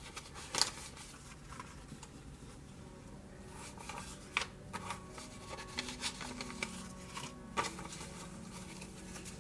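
Paper dollar bills being counted by hand, peeled off a stack one at a time and laid down on a table, making quiet, irregular paper snaps and rustles.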